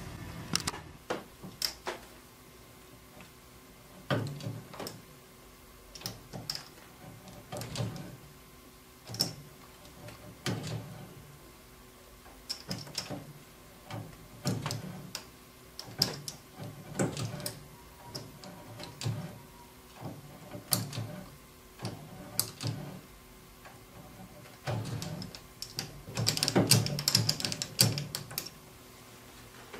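A cutting tool on a small lathe knocks and scrapes against a small steel workpiece as it cuts gear teeth. The strokes come unevenly, about one or two a second, and bunch up louder near the end, over a faint steady hum.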